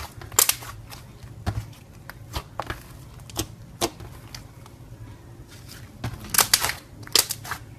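Slime being squeezed and pressed by hand, giving irregular sharp sticky clicks and pops, with a cluster of louder ones near the end, over a faint low hum.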